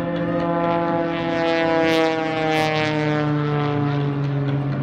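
Pitts Special aerobatic biplane's piston engine and propeller droning overhead, the pitch sliding steadily down. Two brief sharp crackles about two seconds in.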